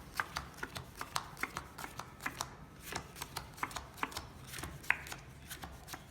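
Playing cards being dealt one by one onto a table, a quick, uneven run of sharp snaps, about three or four a second.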